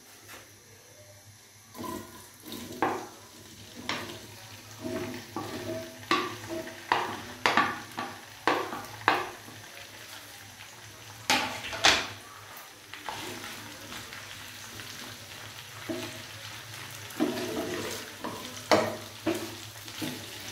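Chopped okra hits hot oil about two seconds in and starts sizzling as it fries. A spatula stirs it, knocking and scraping against the nonstick pan again and again.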